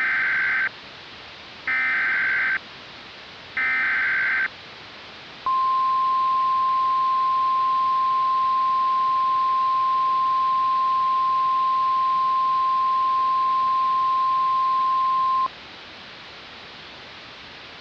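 Emergency Alert System SAME header sounded three times, three short buzzy digital bursts about a second apart. It is followed by the single steady weather radio alert tone of about 1050 Hz, which lasts about ten seconds and cuts off sharply. A faint steady hiss lies underneath.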